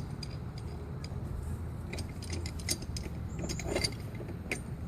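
Light clinks and taps of small hard objects being handled, scattered irregularly over a steady low hum.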